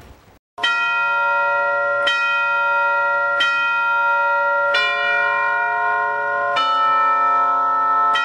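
Church bells ringing, starting about half a second in: a new bell struck roughly every one and a half seconds, about six strikes, each ringing on into the next at a changing pitch.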